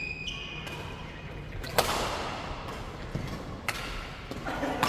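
Badminton rackets striking a shuttlecock during a doubles rally: three sharp hits, the loudest about two seconds in, another near four seconds and one near the end. Brief squeaks of shoes on the court floor come near the start.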